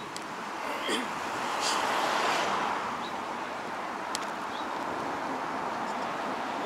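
Road traffic noise: a passing car's tyre and engine noise swells about two seconds in and eases off, with a few faint ticks.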